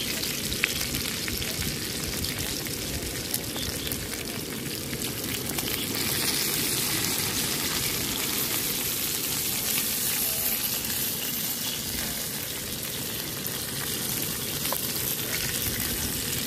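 Lamb chops frying, a steady sizzling hiss with a few small pops.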